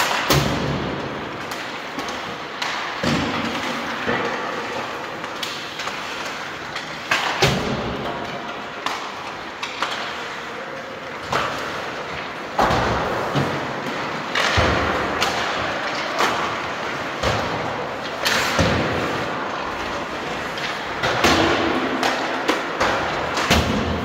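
Irregular thumps and knocks, a few seconds apart, over a steady background noise.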